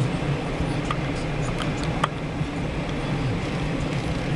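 Car interior noise while driving slowly: a steady low engine and road rumble, with a few light clicks about one to two seconds in.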